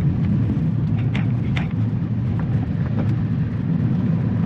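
Pickup truck driving on a dirt road, heard from inside the cab: a steady low rumble of engine and tyres, with a few short clicks.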